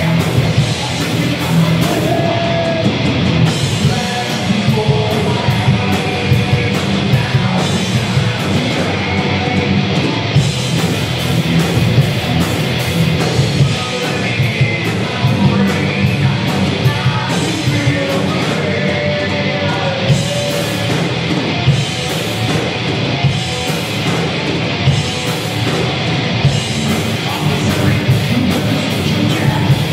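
Live rock band playing loud: distorted electric guitars and a pounding drum kit through a club PA, running steadily.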